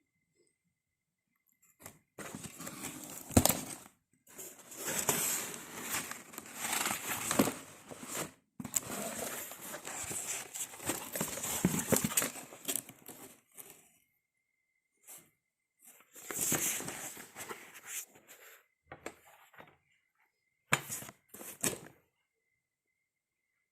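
Packaging being handled and unwrapped, crinkling and rustling in irregular bursts with silent pauses between them.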